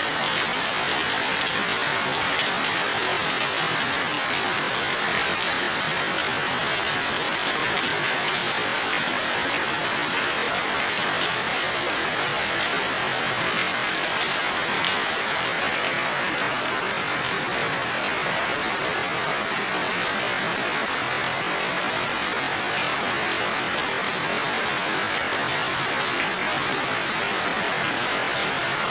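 Heavy tropical rain pouring steadily onto garden foliage and a paved street, a dense, even hiss that does not let up.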